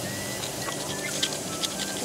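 Beef slices sizzling in their own juices in a cast iron skillet over a gas single burner: a steady hiss with scattered pops and crackles after about half a second.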